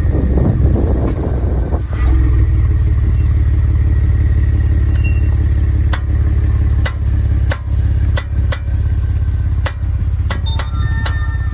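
2013 Ford F-150 pickup running steadily, with sharp, irregular clicks from the front end starting about five seconds in. This is the 'bicycle card' clicking that the owner traced to the front hubs and the 4WD vacuum actuator.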